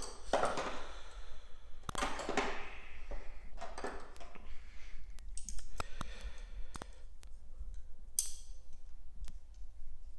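Metal clicks and short rattles of Snap-on snap ring pliers being handled and adjusted, a run of separate sharp clicks with brief scraping in between.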